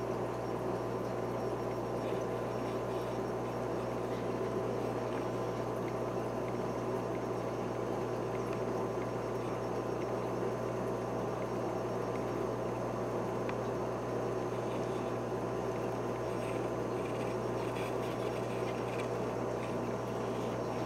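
Aquarium filter running: a steady trickle and bubble of water over a constant low hum, with a few faint ticks near the end.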